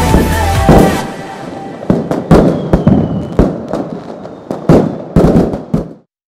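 Fireworks going off: a rapid string of sharp bangs and crackles after music ends about a second in, with a short whistle near the middle. The sound cuts off suddenly about six seconds in.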